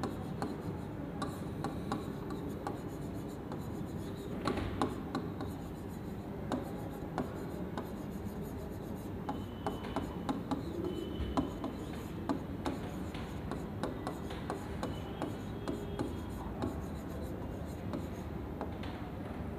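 Stylus writing on an interactive smart board's screen: many small irregular taps and rubs as handwriting goes on, over a steady background noise.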